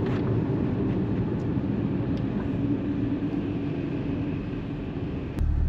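Interior sound of a Porsche 981 Cayman GTS's mid-mounted flat-six engine at low revs as the car pulls away: a steady low hum with faint road noise. Near the end it abruptly becomes a louder, deeper rumble.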